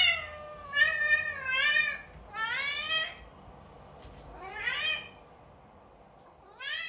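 Domestic cat meowing repeatedly, about five drawn-out meows with short pauses between them, several rising in pitch.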